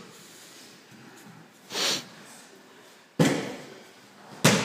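Two sharp thuds on the training mats about a second and a half apart, each with a short ringing tail in the hall, typical of bodies landing during aikido throws. A brief breathy hiss comes a little before them.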